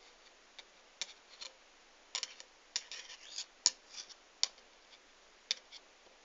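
About a dozen sharp, irregular clicks and light taps of a magnetised screwdriver being handled against small metal objects.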